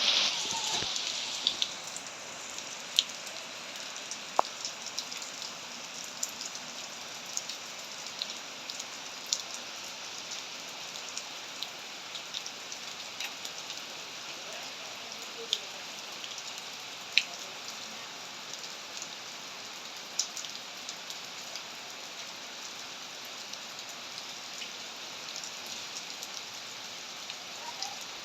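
Steady rain falling: an even hiss with scattered sharp ticks of individual drops. It starts abruptly, a little louder for the first second or two, then holds steady.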